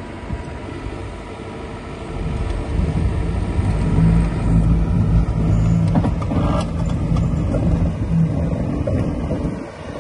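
Hyundai Robex 140 LCD-7 excavator's diesel engine running. It rises in revs about two seconds in, holds a steady higher note, then drops back near the end.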